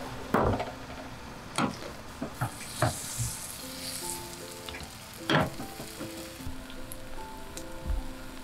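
Thick vegetable batter frying in hot oil in a nonstick pan over a gas burner, sizzling steadily. A spoon scrapes and taps against the pan a few times in the first three seconds and once more past the middle as the batter is spread.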